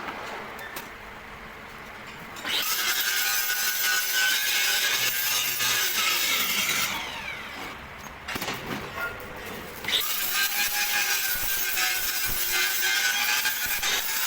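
Angle grinder cutting steel in two long passes, its whine dipping and sliding in pitch between them about halfway through.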